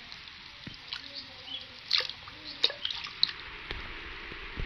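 Water dripping and splashing lightly in a plastic basin as a hand scoops it over a baby monkey being bathed, with a few sharper splashes in the middle.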